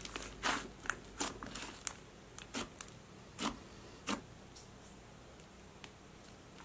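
White butter slime being squeezed and stretched by hand, making scattered sticky clicks and pops that die away after about four seconds.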